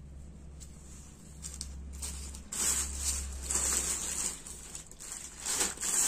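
Plastic packets crinkling and rustling in uneven bursts as packaged dupattas are handled, starting about halfway through, over a low steady hum.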